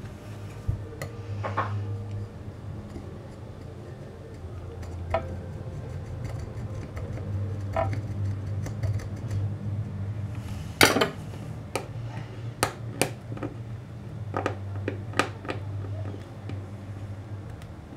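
Melted plastic being scraped and picked off a glass hob top with a knife blade and fingertips: scattered ticks, taps and short scrapes, with one louder, longer scrape partway through, over a steady low hum.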